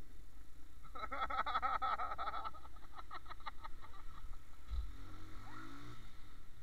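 AKT TTR 125's small single-cylinder engine running under a steady low rumble of road and wind noise while riding on wet streets. About a second in, a brief, high-pitched wavering sound rises over it for a second or so.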